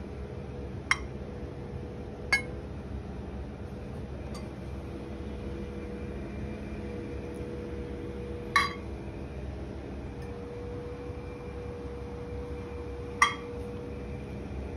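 Metal tongs clinking against ceramic plates a handful of times, two of the clinks sharper than the rest, over a steady background hum.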